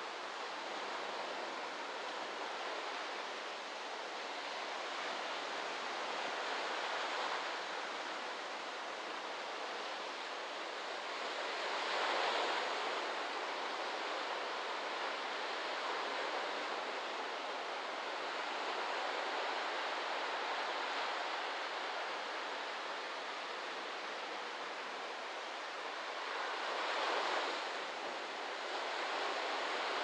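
Ocean waves breaking and washing onto a beach: a steady surf wash, with two louder breakers, one about twelve seconds in and another near the end.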